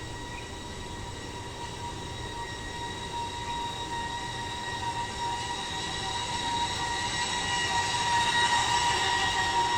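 Robot coffee kiosk machinery running with a steady high whine, growing louder over the last few seconds as it makes a hot Americano.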